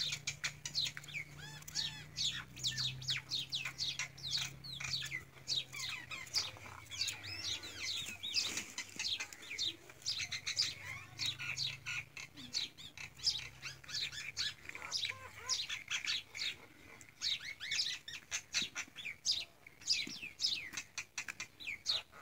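Many small birds chirping busily and without pause, with a faint low hum underneath in places.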